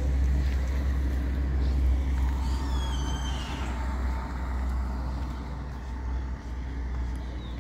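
Outdoor street ambience: a steady low rumble, with a few short high chirps about three seconds in.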